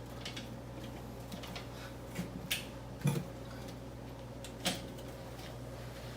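Scattered clinks and knocks from fitting a dishwasher's mounting bracket to the underside of a countertop, about six in all, the loudest a thump about three seconds in, over a steady low hum.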